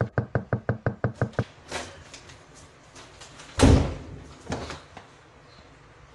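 A fast, even run of knocks, about eight a second, stops about a second and a half in. A few scattered taps follow, then one heavy thump about three and a half seconds in and a couple of lighter knocks after it.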